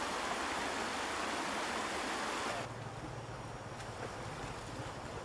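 River water splashing and churning as people and a carabao move through the shallows, a dense steady wash of noise. About two and a half seconds in it cuts to a quieter stretch of water noise with a low rumble underneath.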